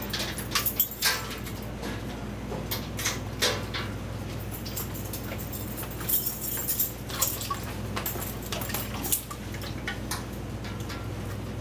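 Metal lockers being handled: irregular light clicks, knocks and rattles, over a steady low hum.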